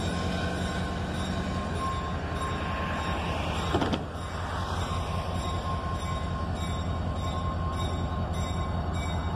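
EMD GP30 diesel locomotive approaching slowly, its engine giving a steady low rumble, with a faint thin steady whine over it. A single sharp knock about four seconds in.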